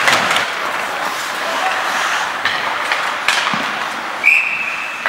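Ice hockey play: skates scraping on the ice and a few sharp stick-and-puck knocks, then a referee's whistle blown once and held for most of a second, about four seconds in.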